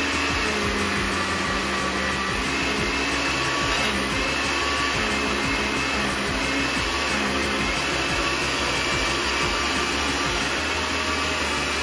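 Countertop blender running steadily, chopping a jar of tomato and green vegetable chunks.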